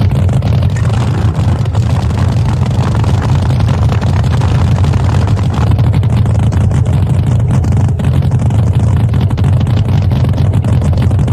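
Supercharged, nitromethane-burning engine of a top fuel hydro drag boat idling loudly and steadily after being fired up.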